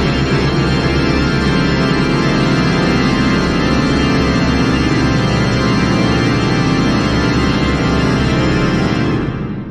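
Seven pipe organs playing together in a dense, sustained chord cluster over a pulsing bass, fading out near the end.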